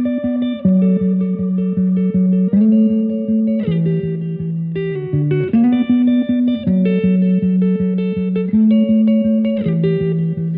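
Background music: a song's instrumental intro of rapidly repeated plucked guitar notes over a bass line, with no singing yet.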